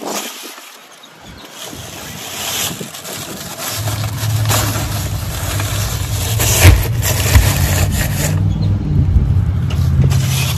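A vehicle engine running steadily, coming in about four seconds in and growing louder. Scattered sharp knocks and crinkles come from the plastic-wrapped cases of bottled water and the shopping cart being handled.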